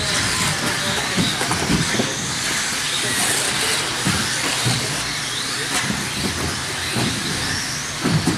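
Electric radio-controlled off-road buggies with 17.5-turn brushless motors racing: a steady hiss of motors and tyres on the track, with whines rising and falling as the cars speed up and slow down, and a few knocks from landings.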